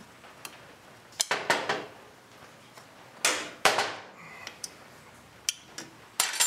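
An open-end wrench and the chrome clutch release cover clinking and scraping while the wrench is set on the clutch cable's threaded fitting to unscrew it. There are several sharp metallic clinks, with the loudest clanks a bit over three seconds in.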